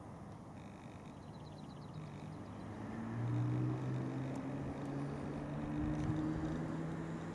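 An engine running steadily in the background, a low hum that grows louder about three seconds in and stays up.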